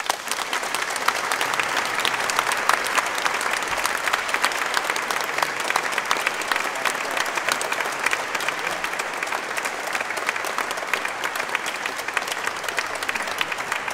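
Audience applauding, many hands clapping in a dense, steady stream that eases slightly near the end.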